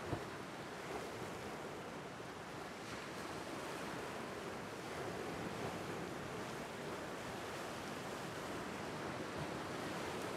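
Lake Superior waves washing in and splashing against a rock ledge on a rocky shore, a steady surf wash with a sharper splash just after the start.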